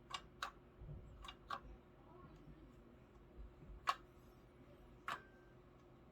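Sparse sharp clicks and taps of metal parts and tools being handled, about six in all; the loudest comes about four seconds in, and one near the end leaves a brief ring.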